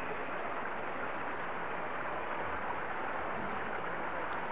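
Steady rush of splashing water from a fountain, its jet falling into a basin.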